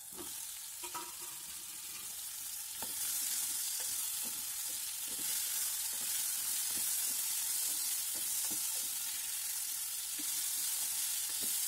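Shallots, tomato and yellow pumpkin pieces sizzling in hot oil in a metal pan while being stirred with a wooden spatula, with scattered light knocks of the spatula and pieces against the pan. The sizzle gets louder about three seconds in as the fresh pumpkin goes into the oil.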